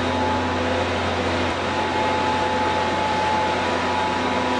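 Rendering-plant machinery running steadily: a constant mechanical noise with a low hum and a few steady tones, the low hum dropping slightly about one and a half seconds in.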